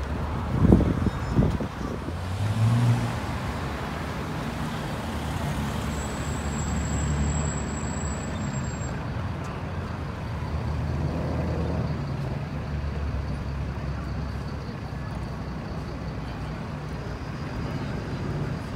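Chevrolet Camaro's exhaust sounding loud in a few short bursts about a second in as it pulls away, then a brief engine rev. After that, the steady low hum of city traffic with engines idling and rolling by.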